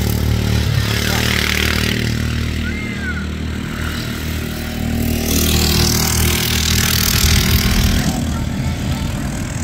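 Racing lawnmower's small engine running steadily as the mower drives off along the track. A louder rushing noise comes in for a few seconds about halfway.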